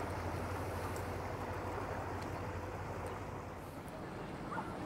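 A motor boat's engine running with a steady low hum that fades away after about three seconds, over a wash of water and wind noise.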